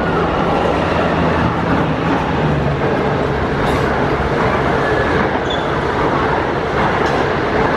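HXD1D electric-hauled passenger train with 25K coaches passing at speed: a steady, loud rumble of wheels on rails, with a low hum through the first three seconds.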